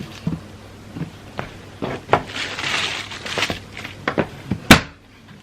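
Clicks, knocks and rustling of a plastic mini fridge being handled, with one sharp, loud click near the end.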